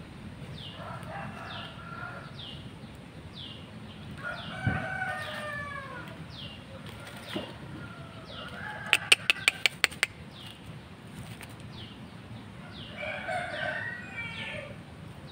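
Rooster clucking in soft, short calls a few times. Under it runs a faint high chirp, falling in pitch and repeating less than a second apart. About nine seconds in comes a quick run of sharp claps.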